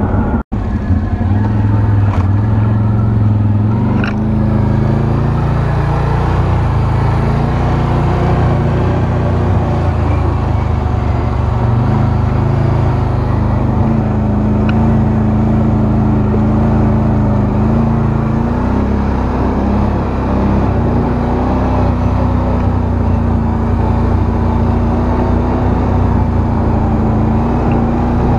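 Can-Am Outlander 1000 XT-P ATV's V-twin engine running steadily as the quad is ridden along a dirt trail, its pitch shifting a little with the throttle. The sound drops out briefly about half a second in.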